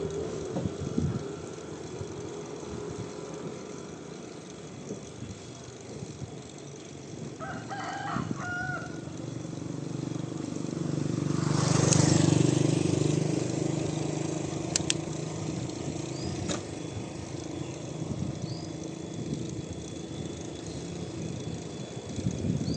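Countryside ambience heard from a moving bicycle: a rooster crows once about a third of the way in, then a motor vehicle approaches and passes, loudest about halfway, with a few short bird chirps after it.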